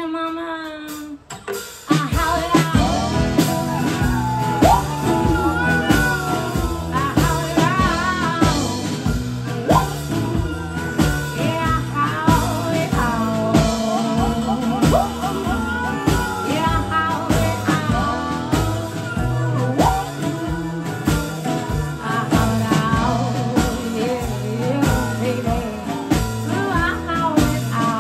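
Live band playing: a quieter held note, then the drum kit and full band come in about two seconds in, with a lead line that slides and bends over a steady beat.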